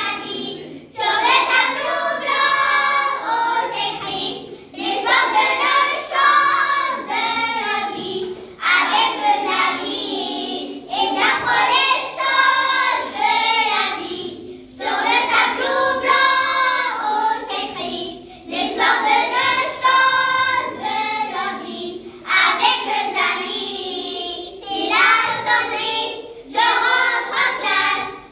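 A group of about a dozen young schoolchildren singing a song in unison, in phrases of two or three seconds with short pauses for breath between them, without instruments.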